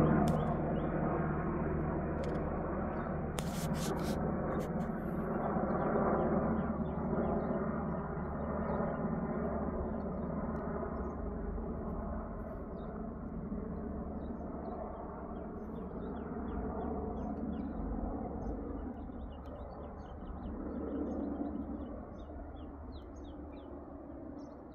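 Helicopter passing overhead: a steady rotor and engine drone that slowly fades as it flies away. Small birds chirp faintly over it.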